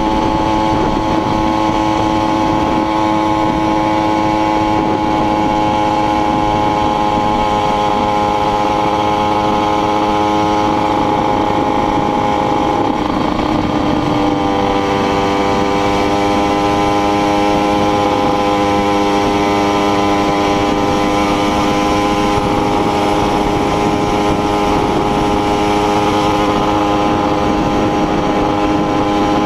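Small motorcycle engine running steadily at cruising speed on the road, with wind rush. The engine note drops a little about halfway through, then holds steady again.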